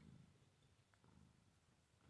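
A cat purring faintly, strongest in the first half second and then dying down, with a faint click about a second in.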